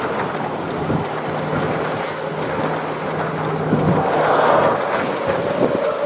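Cars driving along a two-lane country road, with wind blowing over the microphone; a low steady hum holds for several seconds in the middle.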